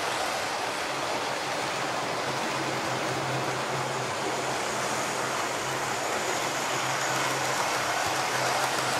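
Model trains running on the layout's track: a steady rushing rattle of wheels on rail with a faint low hum underneath.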